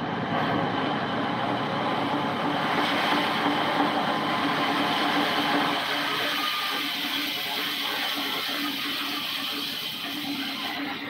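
Large vertical band saw cutting lengthwise through a big log: a steady, loud run with a low hum and a high whine over the rasp of the blade in the wood.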